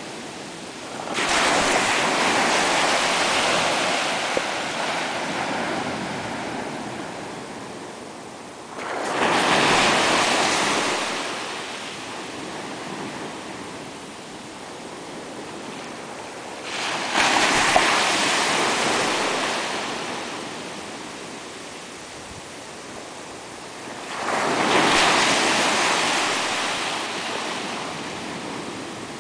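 Ocean surf: small waves breaking and washing up the beach, four times, about every eight seconds. Each wash rises quickly and fades away over several seconds.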